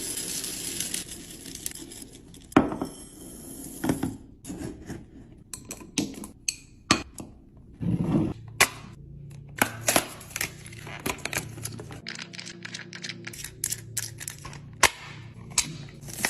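Packaging rustling and tearing for about the first two seconds, then a string of irregular sharp clicks and knocks as groceries and plastic containers are handled and set down while restocking a fridge.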